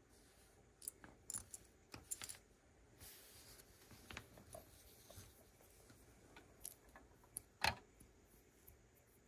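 Plastic Lego pieces clicking and rattling as they are handled and pressed together: scattered sharp clicks, the loudest about three-quarters of the way through, with a soft rustle around three seconds in.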